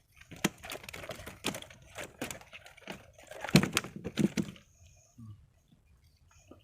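A run of clattering knocks and thumps, like things being handled and set down against a hard surface, the loudest about three and a half seconds in; the clatter stops about a second later.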